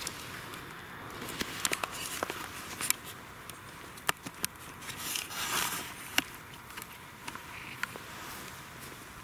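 Irregular light clicks and crackles from footsteps on dry grass and handling of the camera, with a brief rustle about halfway through.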